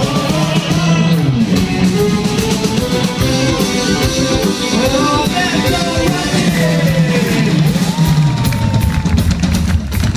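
Live rock band playing through a concert PA: electric guitars, bass and drum kit, with a man singing over them.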